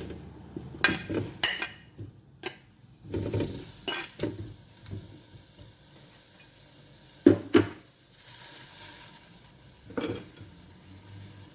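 A cooking pot and utensils knocking and clinking as cow skin is put on to cook, with a faint sizzle between the knocks. The loudest is a double knock about seven seconds in.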